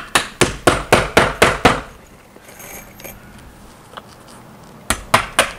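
Hammer driving nails through the nail slots of vinyl J-channel: a quick run of about seven sharp strikes, roughly four a second, then a pause of about three seconds and another rapid run of strikes near the end.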